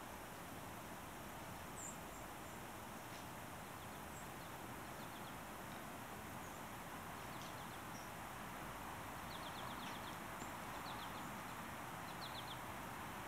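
Faint high bird calls, scattered chips and, in the second half, a few quick runs of four to six short notes, over a steady background hiss of outdoor ambient noise.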